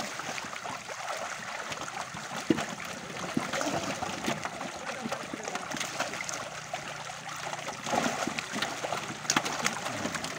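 Water splashing and pattering continuously as many fish thrash at the surface inside a crowded seine net, with frequent short sharp splashes.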